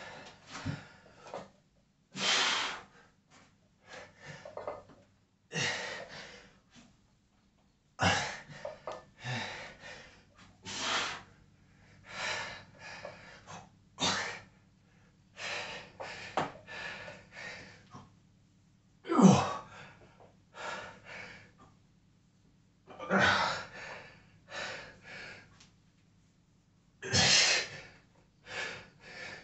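A man breathing hard through a set of barbell deadlifts: sharp, noisy exhales and gasping inhales every second or two, with one voiced grunt about two-thirds of the way through.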